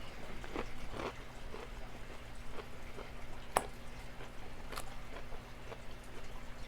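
A person chewing a mouthful of salad close to the microphone, a run of small, irregular wet clicks and smacks. One sharp click stands out about three and a half seconds in.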